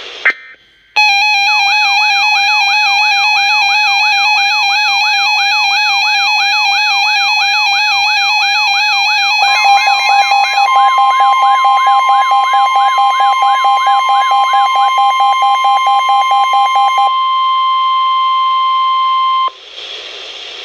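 Emergency alert tones over a weather-radio broadcast. A steady tone with a warbling siren over it starts about a second in, and a second, higher steady tone joins partway through. Near the end the warble stops, and the single steady warning tone holds alone for a few seconds before cutting off into faint radio hiss.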